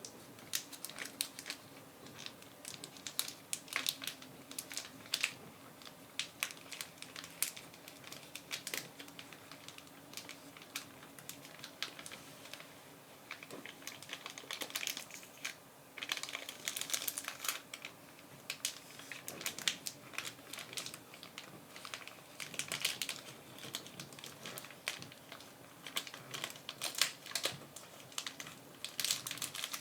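A shiny silver package crinkling as it is slowly handled, with dense clusters of small, crisp crackles that come and go.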